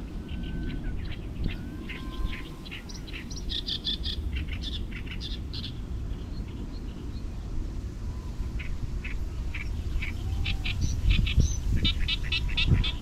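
Small birds chirping in quick runs of short notes, one cluster in the first few seconds and a denser one near the end, over a steady low rumble.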